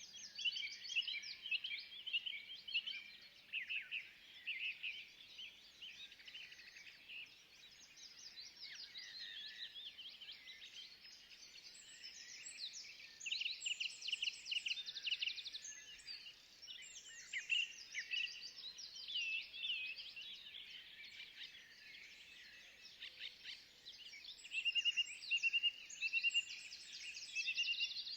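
A chorus of several songbirds in a forest, many overlapping chirps, trills and quick repeated notes, with louder bursts of song a second or so in, around the middle, and near the end.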